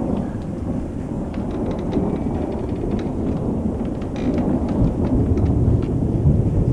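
Rain falling steadily, with a continuous low rumble of thunder underneath and scattered drops ticking.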